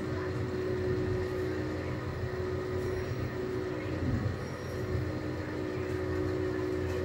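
Steady low mechanical rumble with a constant hum, unchanging throughout.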